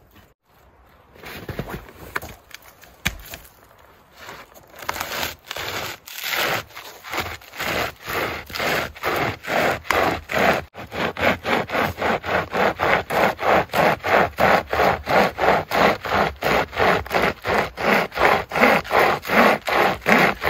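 Nordic Pocket Saw, a hand-pulled pocket chainsaw chain, cutting through a fallen conifer log with back-and-forth scraping strokes. The strokes start slow and uneven, then settle after several seconds into a fast steady rhythm of about three a second.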